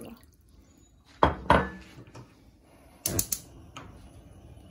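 Cookware knocking and clinking: two sharp knocks about a second in, then a quick run of bright clinks about three seconds in, as a steel saucepan and a ceramic mug are handled on the stovetop.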